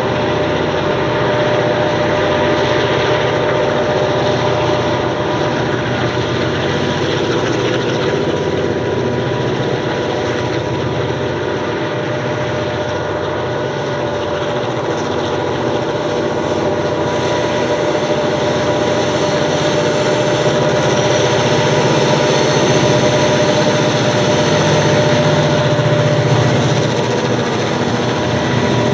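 Diesel locomotives CLF2, 4908 and CLP9 hauling a loaded grain train: their engines run steadily, with a held whine over the engine noise, a little louder in the last few seconds as the locomotives pass close by.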